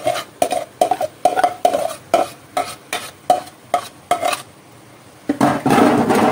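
Boiled rice being tipped from a metal pot into a frying pan: a quick run of metallic knocks, about three a second. After a short pause, near the end, a spatula scrapes and stirs the rice in the pan.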